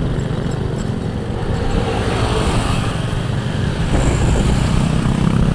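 Motorcycle riding along at road speed: the engine runs steadily under a rush of wind noise on the microphone.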